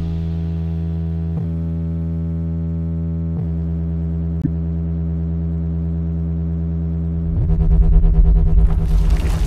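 Background music of long held synthesizer-like chords that change a few times, swelling with a deep low rumble in the last two seconds.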